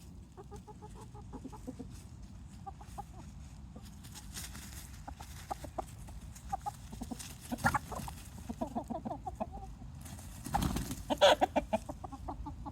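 Chickens clucking with short calls throughout, then a louder flurry of squawking about ten and a half seconds in, as the roosters squabble.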